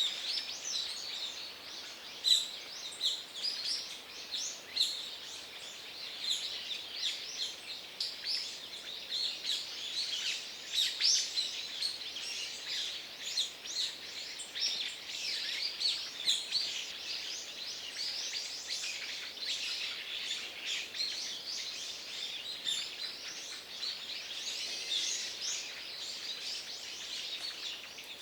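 Many birds chirping together in a dense chorus of short, high notes, overlapping one another.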